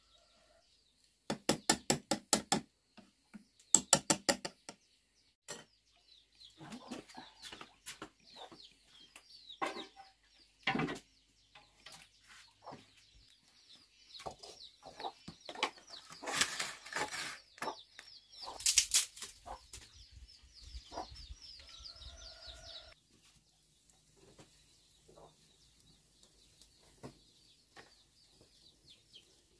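Chickens clucking, with many small high peeps and scattered knocks. Two short runs of rapid loud strokes come in the first few seconds.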